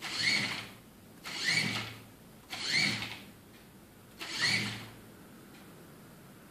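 A small competition robot's wheel drive motors whir in four short spurts about a second and a quarter apart, each rising in pitch as the motors spin up, while the robot turns in place during a motor control test. After the fourth spurt only a faint steady background remains.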